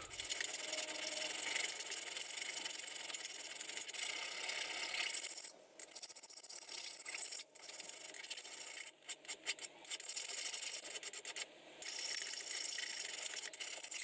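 A flat hand file rasping back and forth across a metal bracket held in a bench vise. The rasping is unbroken for about five seconds, then comes in separate strokes with short pauses between them.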